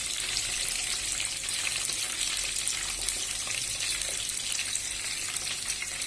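Stuffed carrots deep-frying in hot oil: a steady sizzle with light crackling.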